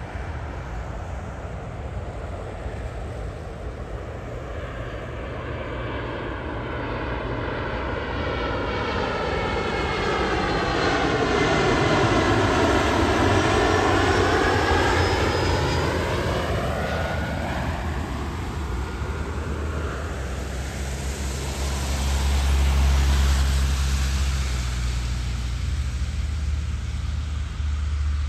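Embraer E175 regional jet passing on its landing: engine noise swells to a peak about halfway through with a sweeping rise-and-fall in tone as it goes by, then fades. A second, deeper rumble swells again near the end.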